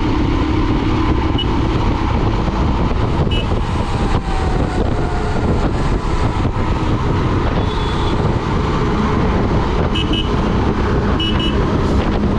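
Royal Enfield Himalayan's 411 cc single-cylinder engine running steadily at highway cruising speed, mixed with heavy wind noise on the action camera's microphone. A few brief high horn toots sound about a second in, at about three seconds, and twice near the end.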